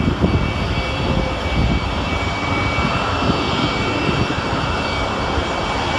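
Steady outdoor rumble with irregular low gusting, typical of wind buffeting a phone microphone, under a faint steady background hum.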